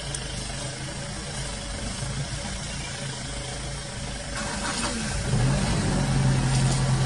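Vehicle engine idling with a steady low hum, growing louder and slightly higher about five seconds in.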